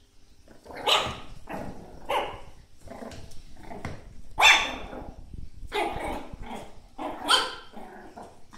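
Chihuahua puppy barking repeatedly, about one or two barks a second, with the loudest barks about halfway through and near the end.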